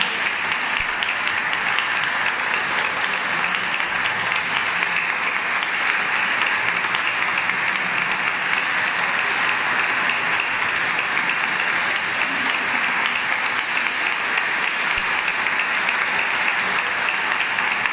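Concert audience applauding steadily, a dense continuous clapping.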